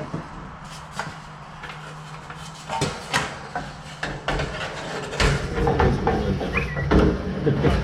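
Scattered metal clicks, taps and rattles as wire connectors are handled and pushed onto the terminals of a dryer heating element. The handling gets busier and louder about five seconds in.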